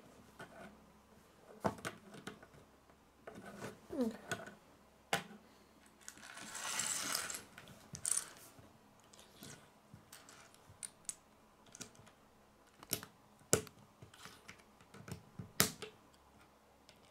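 Small plastic Lego pieces clicking and clattering on a wooden tabletop as they are picked up, set down and snapped together, in scattered sharp clicks. A longer rustle about six to seven and a half seconds in.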